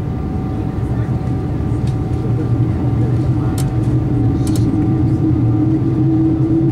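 Jet airliner engines heard from inside the cabin while taxiing: a steady hum with a whine that slowly rises in pitch and grows louder over the last couple of seconds. A few brief clicks sound in the middle.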